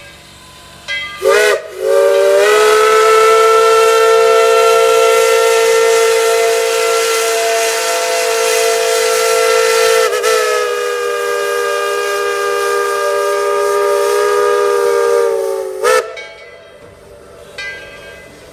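Whistle of Tweetsie Railroad's steam locomotive No. 12, sounding several tones at once: two short toots, then a long blast lasting about 14 seconds with a brief wobble about ten seconds in, then one more short toot near the end.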